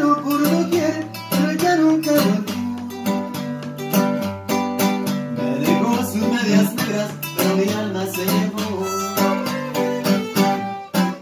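Acoustic guitar strummed in a steady rhythm, with a violin playing a sustained, sliding melody over it: an instrumental passage with no voice.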